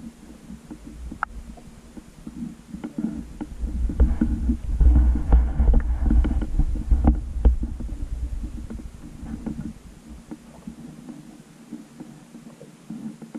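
Muffled underwater rumble of water moving around a submerged GoPro housing. It swells for a few seconds in the middle and then fades, with scattered small clicks and knocks.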